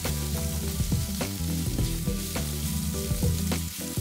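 Sliced onions sizzling in hot oil in a nonstick wok while a slotted spatula stirs them. Short scrapes and taps of the spatula against the pan come every second or so.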